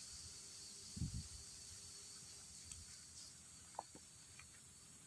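Faint outdoor background: a steady high hiss, with one soft low thump about a second in and a couple of small clicks.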